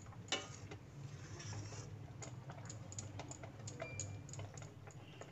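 Thick milk-and-rice payesh simmering on a low flame in a steel pot, faint bubbles popping at its surface in small irregular clicks, over a steady low hum.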